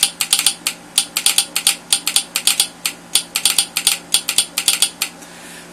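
Railroad telegraph sounder clacking out Morse code, keyed by a straight key through a 9-volt battery. The sharp clicks come in quick pairs as the armature pulls down and releases on each dot and dash. The clicking stops about five seconds in.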